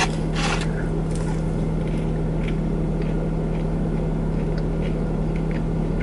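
Steady low hum of a parked car running, heard inside the cabin, with a few faint soft clicks of fries being chewed.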